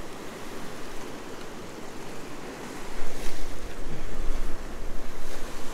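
Choppy surf washing against jetty rocks, with wind rumbling on the microphone growing louder about three seconds in.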